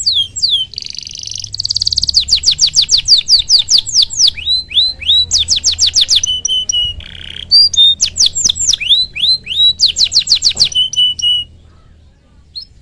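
Domestic canary singing a long song: fast trills of repeated downward-sweeping chirps, broken by a few short buzzy notes. It goes quiet about a second before the end.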